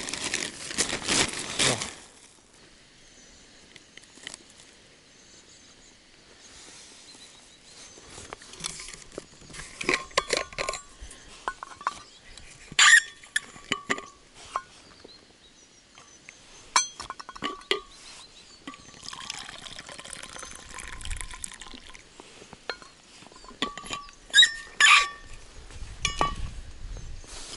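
A plastic bag crinkles at first. Then come a series of sharp metallic clinks and small clicks as a stainless steel vacuum flask's cap is unscrewed and handled, with tea poured from it into its cup.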